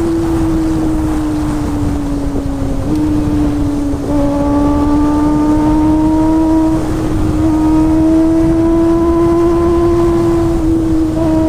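Kawasaki ZX-25R's 249 cc inline four-cylinder engine running steadily at high revs, its pitch drifting slowly down and back up. The engine note gets louder about four seconds in.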